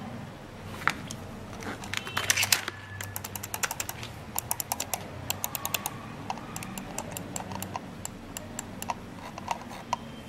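Buttons of a Circle C48 wired mouse clicked over and over, in quick runs of sharp clicks several a second. A few louder knocks come in the first few seconds as the mouse is handled.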